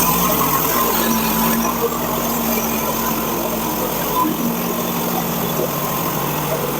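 Portable band sawmill's small gasoline engine running steadily while the band blade saws lengthwise through a wide log.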